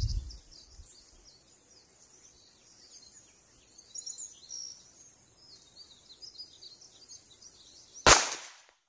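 A single pistol shot from a Rock Island 1911 in 9mm about eight seconds in, the loudest sound, with the audio cutting out briefly right after it. Before the shot, only faint outdoor ambience with small bird and insect chirps.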